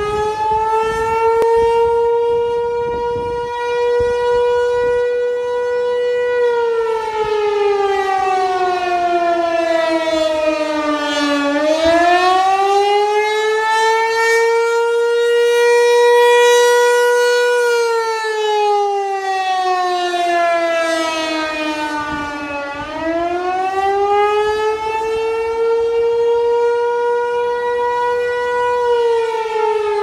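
American Signal T-128 rotating mechanical siren sounding a wail. Its tone holds high, slides down and climbs back up twice, then starts falling again near the end. The loudness swells and fades a little as the horn head turns.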